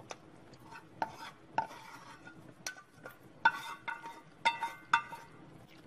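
A metal spatula scraping and knocking against a steel frying pan as stir-fried bamboo shoots are pushed out into a pot: about eight sharp metallic clinks, each with a short ring, the loudest about three and a half seconds in.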